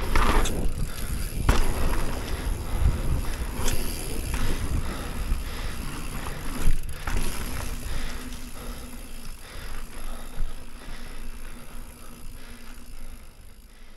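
Mountain bike riding over dirt: a steady low rumble of tyres on the ground with several sharp knocks and clatters from the bike. The sound dies away toward the end.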